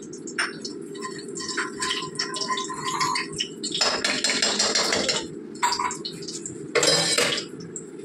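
A metal spoon clinking and scraping around a kadai of hot oil and ghee, with a longer scraping stretch about four seconds in and a shorter one near seven seconds. A steady low rushing noise runs underneath.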